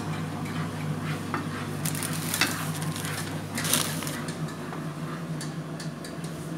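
A spatula stirring and scraping a thick condensed-milk and butter brigadeiro mixture around a frying pan, with short scrapes throughout and two louder ones about two and a half and four seconds in. A steady low hum runs underneath.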